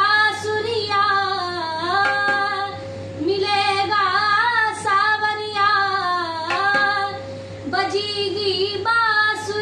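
A woman singing a Marathi devotional bhajan in long, gliding melodic phrases, with two short pauses for breath about three and seven and a half seconds in.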